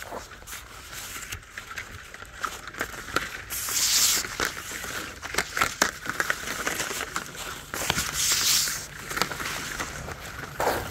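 A garden cart loaded with reels of dripline tubing being wheeled over gravel: crunching and rattling, with many small clicks and knocks from the load. There are two louder, hissing crunches, about four and eight seconds in.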